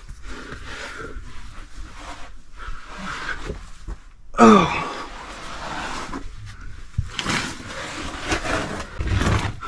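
A caver's effort sounds while climbing down a narrow rock crevice. About four and a half seconds in there is a loud grunt that falls in pitch, and around it his clothing, hands and boots scuff and knock against the rock.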